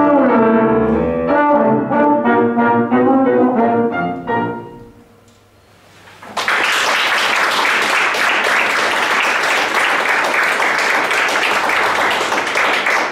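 Trombone with piano accompaniment playing the closing bars of a ragtime piece, with a downward trombone slide near the start; the music ends about four and a half seconds in. After a short pause, audience applause starts and carries on steadily.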